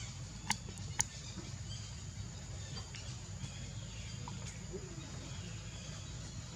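Outdoor ambience: a steady high insect drone over a low rumble, with two sharp clicks about half a second and one second in and a few faint chirps.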